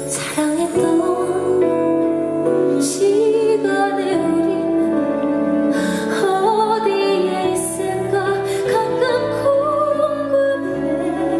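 A slow, tender ballad performed live: a female vocalist sings a gliding melody over sustained instrumental accompaniment.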